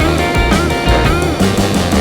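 Background rock music with a steady beat and bending electric guitar lines.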